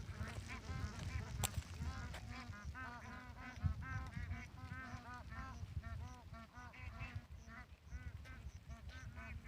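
A flock of farm waterfowl calling, many short honks overlapping one another in quick succession, over a low rumble.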